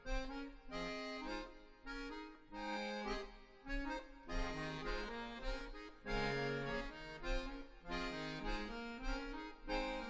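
Two accordions playing a duet: short, repeated chords in a pulsing rhythm, the notes shifting from phrase to phrase.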